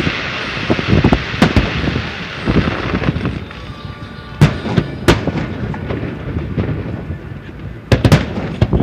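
Fireworks display: a dense crackling of bursting shells through the first few seconds, then sharp single bangs of shells bursting, two about four and five seconds in and a quick pair near the end.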